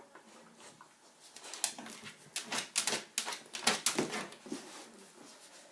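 A beagle pawing and scratching at a fridge: a quick run of clicks and scrapes about a second and a half in, dying away after about four seconds.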